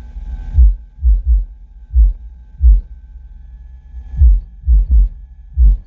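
A truck's car-audio subwoofers playing a bass line inside the cab: about nine deep bass thumps in an uneven rhythm, some in quick pairs. A faint steady whine sits underneath.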